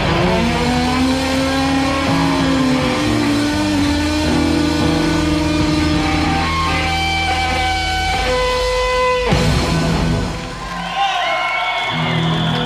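Rock band playing live: electric guitar holding and bending notes over bass and drums. About nine seconds in comes a sharp loud hit, then the sound thins to gliding guitar squeals for a couple of seconds before the full band comes back in.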